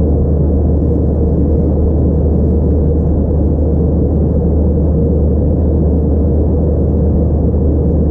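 Steady, low drone inside the cabin of an Airbus A321-211 in flight, seated over the wing: its CFM56 turbofan engines and the air rushing past the fuselage, unchanging throughout.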